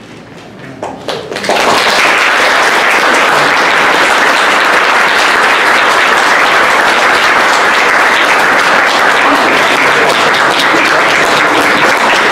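Audience applauding: a few scattered claps at first, then full, steady applause from about a second and a half in.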